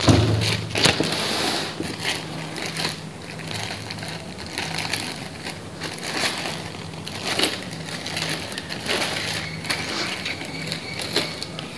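Clear plastic wrapping crinkling and rustling irregularly as a hand reaches into it, with a louder crackle at the start and another sharp crinkle about seven seconds in.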